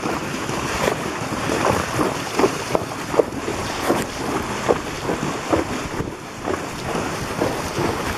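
Horses walking through shallow water, hooves splashing in a regular rhythm of a little over one splash a second, over a steady rush of wind on the microphone.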